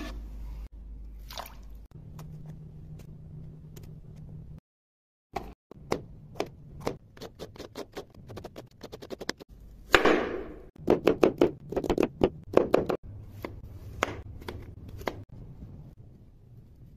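Kitchen knife cutting through raw chicken breast, green bell pepper and tomato on a cutting board: a long series of sharp knife strokes against the board, in quick runs, loudest from about ten to thirteen seconds in. The sound drops out briefly about five seconds in.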